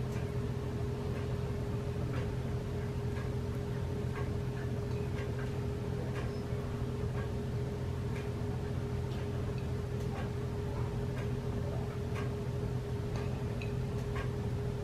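Steady low hum with faint, irregularly spaced light clicks and ticks over it.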